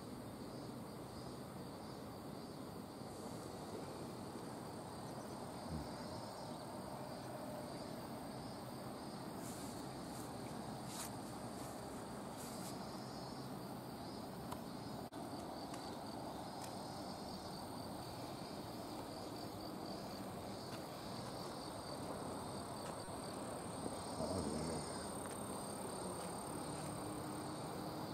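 Insects chirring steadily in summer vegetation: a thin, high, constant trill with a second, lower band that swells and fades every few seconds, over a steady low background hiss.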